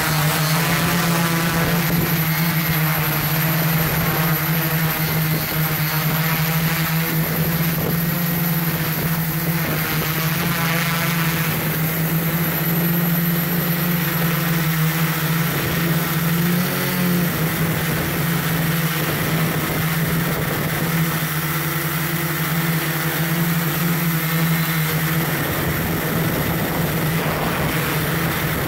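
Camera drone's electric motors and propellers running steadily, a loud even hum with a thin high whine, picked up by the microphone of the camera it carries.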